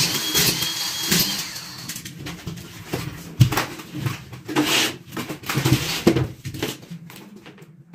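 Knocks, thumps and clatter of plasterboard being handled and fitted to a wall, mixed with short bursts of a small motor, likely a screw gun; the sharpest knock comes about three and a half seconds in.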